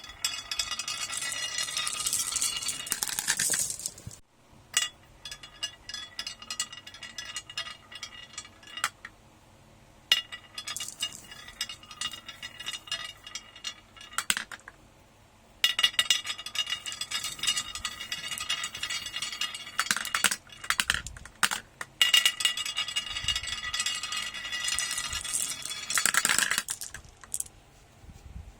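Many marbles rolling and clattering down a marble run track, clicking and clinking against the track and each other. The clatter comes in loud stretches at the start, from about the middle and near the end, with quieter stretches of scattered clicks between them.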